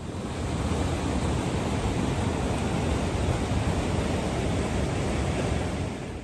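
Waterfall and river rushing: a loud, steady roar of falling water that swells in at the start and cuts away near the end.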